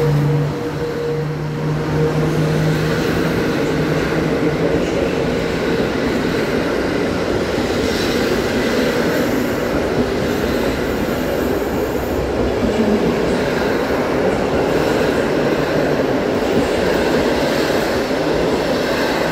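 PKP Intercity passenger coaches rolling past along the platform: a steady rumble and rattle of wheels on rail. The electric locomotive's hum, just gone by, fades out in the first few seconds.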